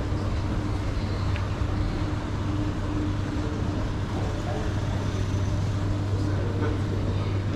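Steady low rumble and hum of a motor vehicle running.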